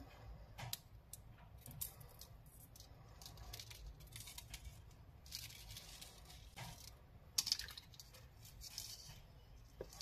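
Faint rustling, small clicks and ticks of hands handling and knotting clear fishing line, with a sharper pair of ticks about seven and a half seconds in.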